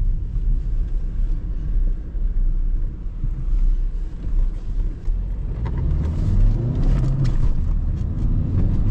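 A car's engine and road rumble heard while driving, a steady deep drone with a few faint clicks. About five to six seconds in, the engine note rises. The car is the 2018 Renault Mégane 4 with its 1.5 dCi diesel engine.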